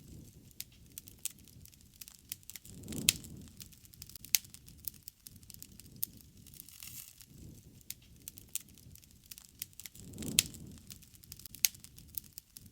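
Wood fire burning: a steady run of sharp crackles and pops, with a low rush of flame swelling twice, about three seconds in and again near ten seconds, each time with a loud snap.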